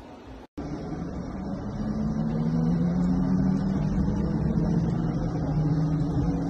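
Mercedes-Benz Vision AVTR electric concept car moving slowly, heard from inside its cabin: a steady hum with a few low tones that waver slightly in pitch. The sound starts abruptly after a brief dropout about half a second in.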